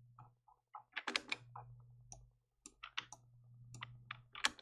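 Faint, irregular clicking of a computer mouse and keyboard, a dozen or so quick clicks, over a low steady hum.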